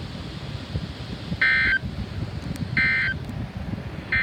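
Emergency Alert System end-of-message signal: three short, identical buzzing data bursts about a second and a half apart, marking the end of the alert. A low rumble runs underneath.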